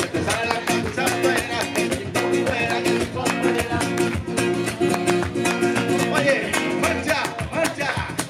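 Nylon-string classical guitar strummed briskly in a rumba rhythm, with a man's voice singing over it at times.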